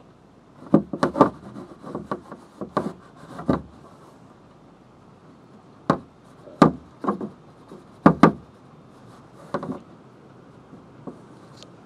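Insect net's pole and frame knocking and rubbing against wooden wall boards: a dozen or so irregular knocks in clusters, with a pause of about two seconds midway.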